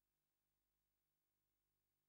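Near silence: an essentially empty soundtrack with only a faint, steady electronic hiss and hum.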